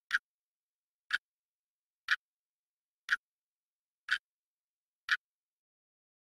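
Clock ticking: six crisp ticks, one a second, with dead silence between them.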